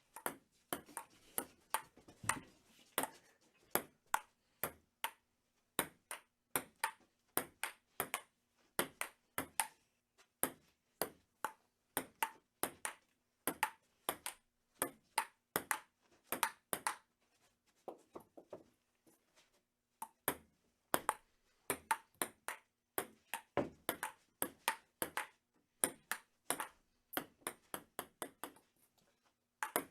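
Table tennis rally: the ball clicks sharply off paddles and table in a quick, irregular back-and-forth rhythm, with a brief lull about two thirds of the way in.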